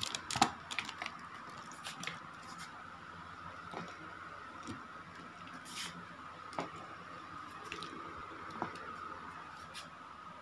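Handling noise from a handheld phone being moved around: scattered small clicks and rubs, a cluster in the first second with the loudest about half a second in, over a steady faint high hum.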